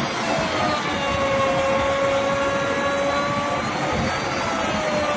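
Handheld electric plunge router running at full speed with its bit cutting into a carved wooden panel, a steady high whine over a rushing noise. The whine dips slightly in pitch twice, about half a second in and again near the end.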